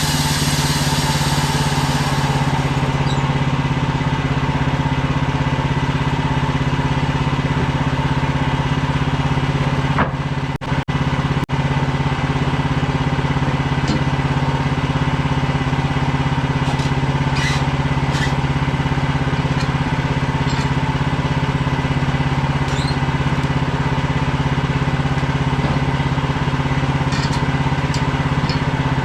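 Small gasoline engine running steadily at a constant speed, with a couple of very brief dropouts about ten seconds in.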